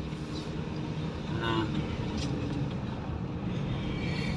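A car's engine and road noise heard from inside the cabin: a steady low rumble.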